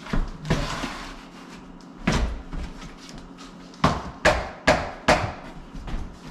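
A run of sharp wooden knocks and bangs as the old exterior door is worked back into its frame: a few single knocks, then four quick ones less than half a second apart near the end.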